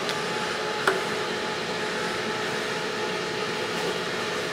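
Electric fans and a solar air heater blowing in a small room: a steady whirring rush with a faint hum in it. A light knock about a second in.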